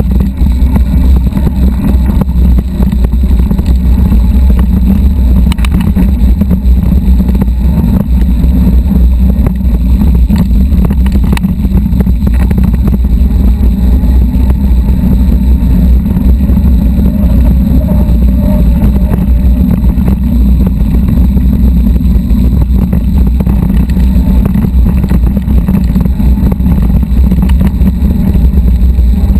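Steady, loud low rumble of wind on the microphone of a mountain bike riding a rocky dirt trail, with a few knocks and rattles from the bike over stones.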